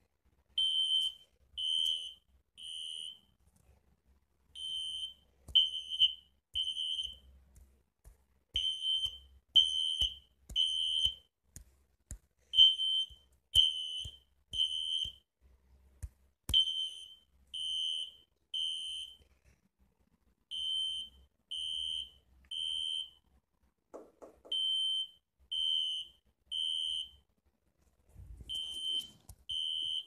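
Smoke alarm sounding in alarm, set off by smoke: a high-pitched beep in repeating groups of three, each group followed by a short pause (the temporal-three evacuation pattern). Several sharp clicks fall between the beeps.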